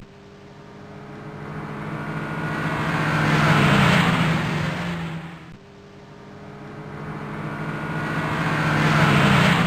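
Volkswagen Golf R car sound, its noise swelling over about four seconds to a peak and fading, then cutting back abruptly about halfway through and repeating the same swell.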